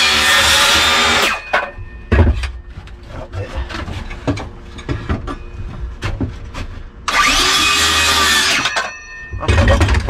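Cordless circular saw cutting through a narrowboat's wooden floorboards: it runs until about a second in and stops, then after some knocks and handling it runs again for about a second and a half before stopping. Knocks and thumps follow near the end.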